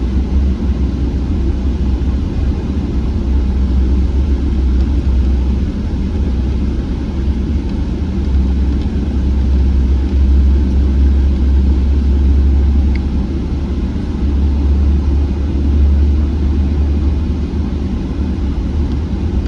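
Steady low rumble inside the cabin of a Boeing 777-300ER: its GE90 engines and the airflow heard from a seat near the wing.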